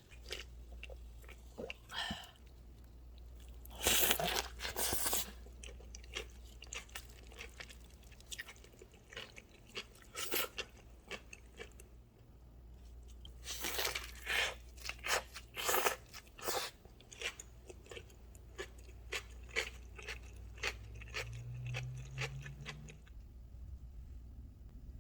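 ASMR eating sounds of a cheeseburger and french fries: crisp bites and crunching, with loud clusters of biting about four seconds in and again around fourteen seconds in, and chewing between them.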